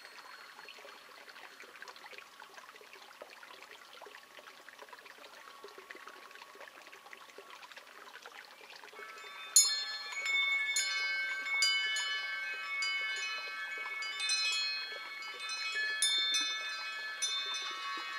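Wind chimes: a faint hiss with soft ringing at first, then about halfway through a burst of struck chimes, many overlapping metallic tones ringing on with fresh strikes every second or so.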